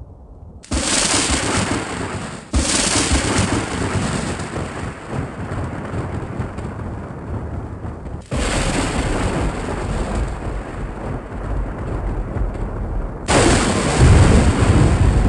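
Thunder sound effects: four sudden, sharp thunderclaps, about a second in, a couple of seconds later, around eight seconds in and near the end, each followed by a long rolling rumble. The last clap is the loudest and deepest.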